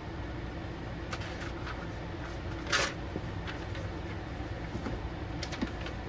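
Steady low background hum, with a few faint light clicks and one short rustle-like hiss near the middle.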